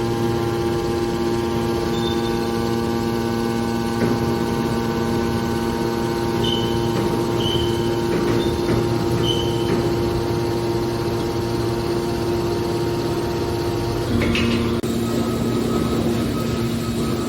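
Hydraulic horizontal metal baler running: its power unit gives a steady hum of several tones. A few short high squeaks come near the middle. About 14 seconds in there is a knock and the hum changes pitch.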